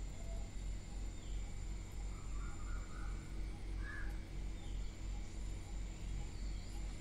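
A low hum that pulses about three or four times a second, with a few faint bird calls over it.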